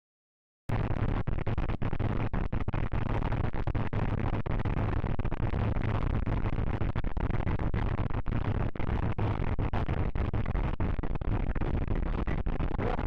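Steady noisy rumble of a vehicle recorded by a dashcam, starting abruptly under a second in, with frequent brief dropouts.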